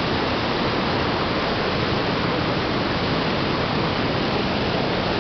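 Dudhsagar waterfall's water rushing over rocks close by, a steady, unbroken rush.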